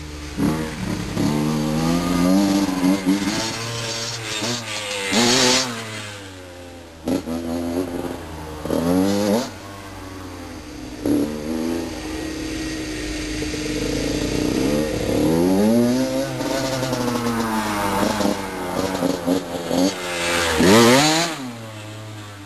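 Honda CR85R dirt bike's 85cc two-stroke single-cylinder engine revving and shifting as the bike is ridden around, its pitch climbing and dropping over and over. It passes loudest about five seconds in and again near the end.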